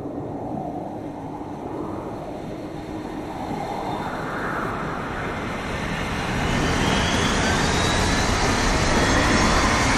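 Aircraft engine sound approaching: a rumbling noise that swells steadily louder, with a faint rising whine coming in over the second half.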